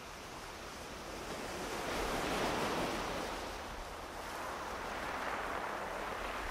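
Small waves washing onto a sandy beach: a soft rush of surf that swells and ebbs, loudest about two and a half seconds in.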